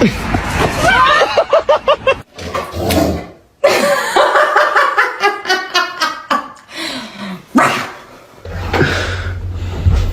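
A dog's cries and barks mixed with people laughing, in several short segments that change abruptly.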